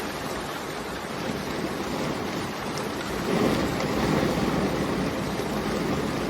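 Steady rain, an even rushing hiss that swells a little about halfway through.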